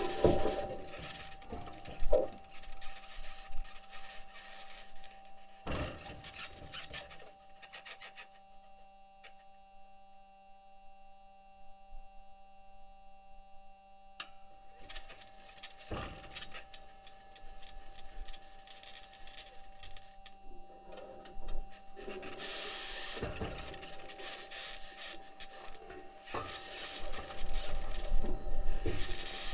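Perseverance Mars rover's wheels and suspension grinding and crunching over the Martian surface as it drives, along with a high-pitched scratching noise. The grinding dies down to a quieter stretch about a third of the way in, and the scratching is loudest near the end.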